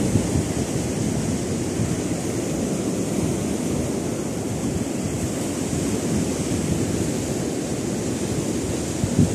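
Steady low rushing of surf breaking on a sandy shore, with wind buffeting the microphone.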